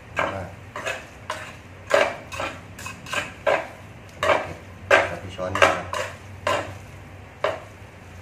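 Chopsticks and a spoon clinking and scraping against an electric pot while stirring and lifting instant noodles, with a sharp clink about every half second.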